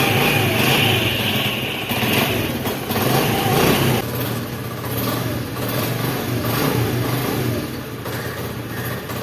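Honda CD 70 (2022 model) single-cylinder four-stroke engine running. It is revved for the first four seconds or so, then settles to a steady idle.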